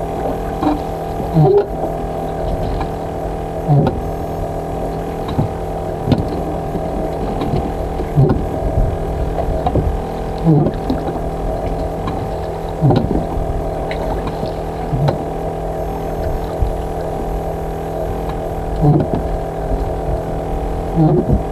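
Fishing boat's inboard engine running steadily at idle, with a short sweeping sound recurring about every two to three seconds.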